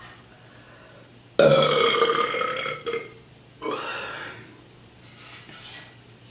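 A person burping twice. The first is a long, loud pitched belch that starts suddenly about a second and a half in and lasts about a second and a half. The second, shorter and quieter, follows about two seconds later.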